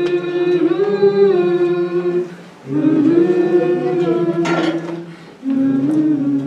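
A group of voices singing a cappella in harmony, long held notes in three phrases with short breaks between them.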